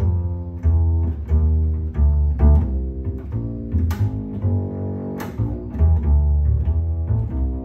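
Solo double bass played pizzicato: a blues line of plucked notes, each with a deep, full low end. There are two sharp clicks about four and five seconds in.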